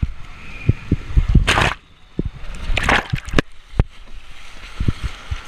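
Water rushing and sloshing around a rider sliding down an enclosed water slide, with two loud splashing surges, about 1.5 s and 3 s in, and many short low thumps and knocks.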